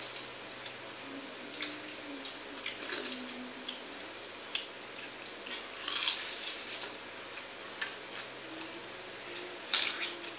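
Hands scooping and mixing watery fermented rice (pakhala) in steel bowls, with small clinks, chewing and slurping as two people eat it by hand; the loudest slurps come about six seconds in and near the end. A steady low hum runs underneath.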